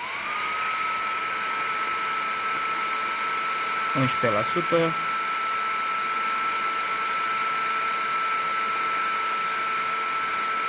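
Electric blower appliance running as the inverter's test load, switched on: its motor whine rises within half a second to a steady high tone over a steady rush of air.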